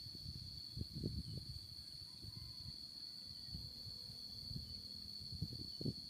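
Steady high-pitched insect drone holding one pitch throughout, with irregular low thumps and rumbles underneath.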